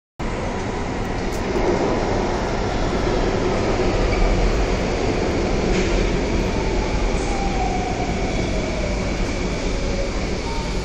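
Downtown Line C951 metro train running into an underground station behind platform screen doors: a steady rumble with a faint falling whine in the last few seconds as it slows to stop.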